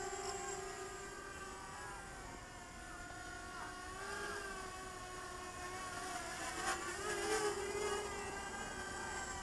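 Eachine EB185 racing quadcopter's brushless motors and propellers whining in flight, the pitch wavering up and down with throttle. The whine swells and bends about seven seconds in.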